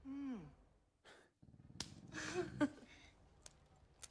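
A short hummed "mm" from a voice, falling in pitch, then a breathy sound about two seconds in, with a few faint clicks.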